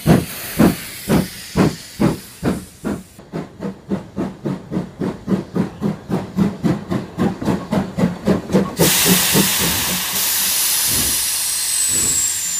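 Cartoon steam train sound effect: chugging in an even rhythm of a few chuffs a second. About nine seconds in, the chugging gives way to a long, steady hiss of released steam as the train pulls up, with a faint falling high whistle near the end.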